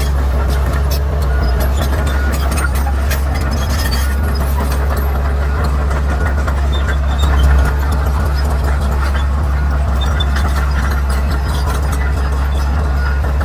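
Bulldozer's diesel engine running steadily under load, a deep hum with scattered sharp clicks and cracks, swelling briefly about seven seconds in.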